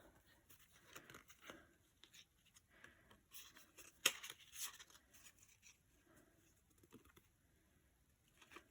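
Faint rustling and light taps of paper cards and packaging being handled, with one sharper click about four seconds in.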